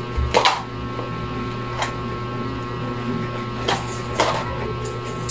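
Packaging wrapper crinkling in a few short bursts as a small wrapped item is handled and unwrapped by hand, over a steady hum.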